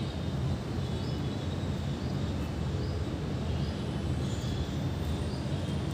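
Steady low background hum, with faint short bird chirps about once a second.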